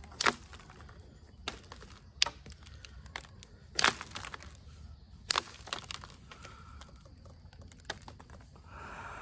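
Onondaga chert being knapped: sharp stone clicks as flakes come off the edge. There are four loud ones a second or two apart, with fainter ticks between.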